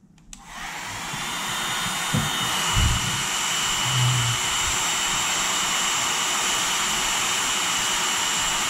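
Handheld hot-air blower switched on, its fan spinning up over the first second or so into a steady blowing rush with a faint high whine. It is heating a snow globe's base to soften the glue holding the broken glass globe. A few soft knocks come about two and three seconds in.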